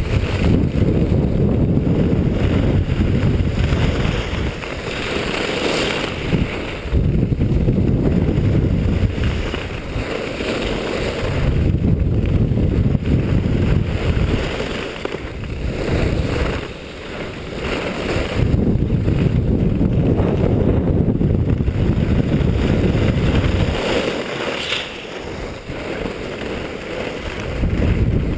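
Wind rushing and buffeting over a skier's action-camera microphone during a downhill run, surging and easing off several times, with the hiss of skis sliding and scraping over firm snow.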